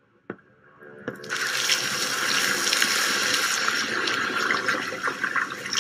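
Sound effect of rushing, fizzing liquid, starting about a second in and easing off near the end, for a scientist's device working in a bucket of steaming green potion.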